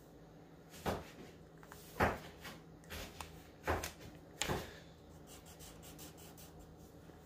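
Markers being handled and set down on a cutting mat: a few short knocks and scrapes, one to two seconds apart. Near the end come faint strokes of a Sharpie marker on paper.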